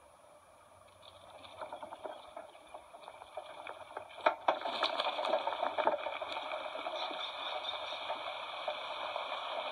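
Eagle nest cam's microphone picking up a rushing, rustling noise as the nest shakes in an earthquake, heard through a screen's speaker. It builds gradually, then turns louder about four seconds in with a few sharp knocks, and holds there.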